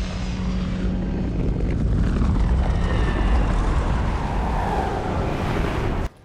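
Loud roar and rush of an Airbus A320 airliner passing low, with falling whines in the noise, cutting off suddenly just before the end.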